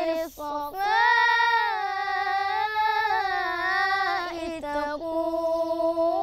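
A boy munshid singing Egyptian religious inshad solo, without accompaniment, in long ornamented held notes with wavering pitch and a short breath break just after the start.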